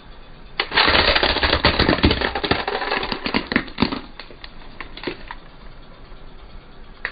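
A plastic toy flip phone cracking and crunching under a car tyre: a sudden burst of rapid snapping and crackling about half a second in, thinning out to scattered clicks over the next few seconds.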